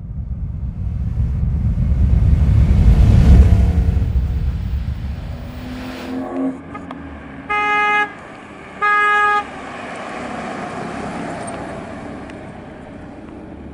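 Bugatti Type 35 replica with a Triumph four-cylinder engine driving past, its engine loudest about three seconds in and then fading. Two short steady horn toots follow about a second apart, and the engine runs on quietly as the car pulls away.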